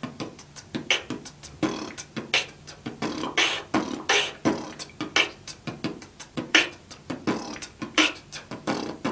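Human beatbox beat with lip bass worked in: sharp drum sounds made with the mouth in a steady rhythm, about three hits a second, with buzzing lip-vibration bass between them.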